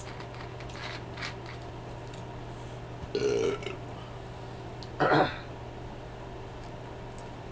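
A man belching twice from a stomach full of soda and food: a short burp about three seconds in, then a louder, harsher one about five seconds in. Before them come a few faint ticks as the plastic soda bottle is handled.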